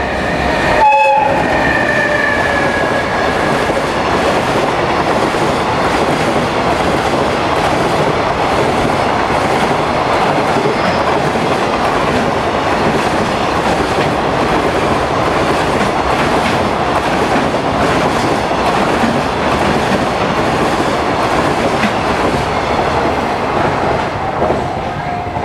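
A JR Freight container train passing at speed. Its locomotive's horn sounds briefly about a second in, then there is a long, steady rumble and clatter of wheels on rail as the container wagons go by. The sound eases near the end.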